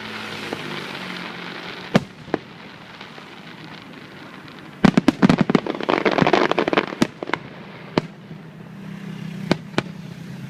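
Aerial fireworks bursting: scattered sharp bangs, then a dense volley of cracks and crackling about five to seven seconds in, followed by a few more single bangs.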